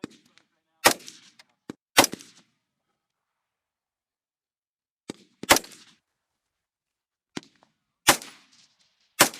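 Rifle shots fired singly at irregular intervals: five loud reports with short echoing tails, and fainter shots in between.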